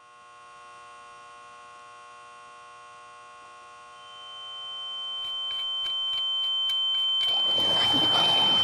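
A steady electronic drone fades in. About four seconds in, a single high-pitched whine joins it and swells steadily louder. Near the end a loud rushing noise builds in underneath.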